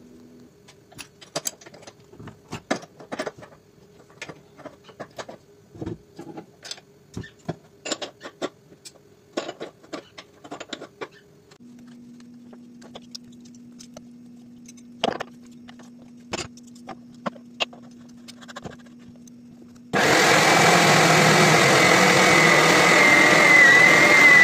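Scattered clicks and scraping as a clogged electric meat grinder head is cleared of sprouted-wheat roots by hand. About twenty seconds in, the electric meat grinder switches on suddenly and runs loudly with a wavering whine, grinding soaked sprouted wheat.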